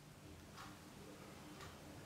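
A clock ticking faintly over quiet room tone, one tick about every second, two ticks in all.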